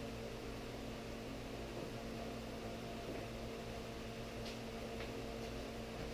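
Steady electrical or mechanical hum with a few faint clicks about two-thirds of the way through.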